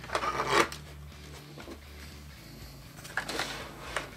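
Plastic clatter and scraping as the RC tank's upper hull is lifted off and tipped back from the lower hull, loudest about half a second in, with a smaller rattle near three seconds in.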